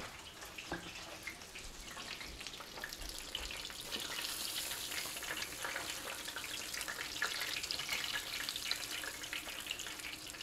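Trout fillets breaded in cracker crumbs frying in hot oil in a frying pan: a steady, crackling sizzle that grows louder about four seconds in.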